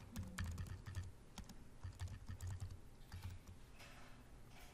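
Computer keyboard typing: a run of faint, irregular keystrokes as a command is typed.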